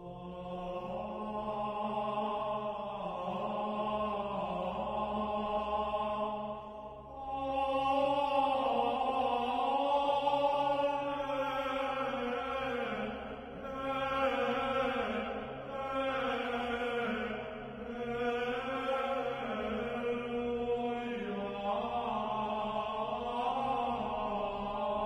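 Slow chant-like vocal music with long, drawn-out held notes, dipping briefly about seven seconds in.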